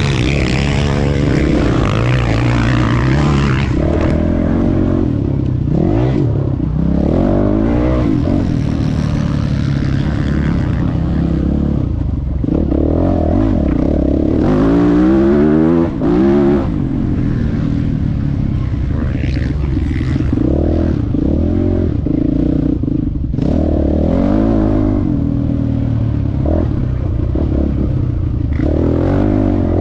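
Motocross bike engine heard from onboard at racing speed, revving hard and shifting, its pitch climbing and dropping again and again.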